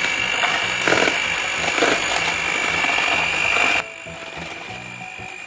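Cosmos CM1279 electric hand mixer running, its motor giving a steady high-pitched whine as the beaters whip ice-cream mix in a bowl. The sound drops sharply in loudness almost four seconds in, while the whine carries on more faintly.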